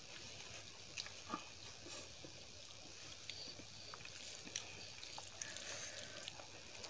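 Faint eating sounds: chewing and the soft wet squish of fingers mixing basmati rice and dal on a steel plate, with scattered small clicks.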